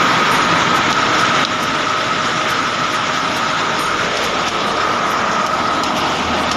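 Heavy hailstorm: a dense, steady rattle of hailstones and rain pelting down, with a thin steady whine underneath.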